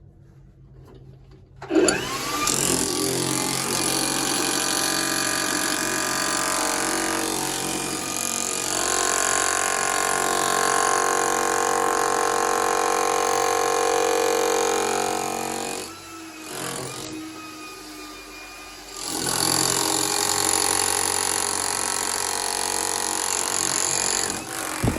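Hilti TE-700 AVR electric jackhammer hammering into rock, starting about two seconds in with a steady, loud chatter. It drops off to a lower level for about three seconds partway through, then hammers again, with a sharp knock near the end.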